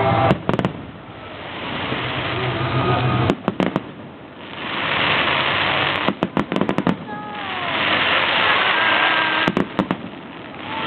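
Aerial fireworks bursting: clusters of sharp bangs every few seconds, with long swells of crackling between them.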